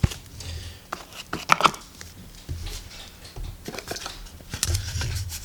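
Firework packaging being handled and shifted, crinkling and rustling, with a few sharp clicks and light knocks in two clusters.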